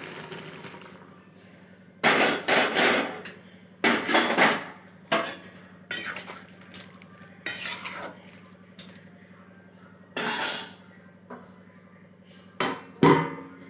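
A metal spatula scrapes and clanks against a metal wok, in irregular strokes, as a watery vegetable curry is stirred. A hiss from water just poured into the hot pan fades out in the first second.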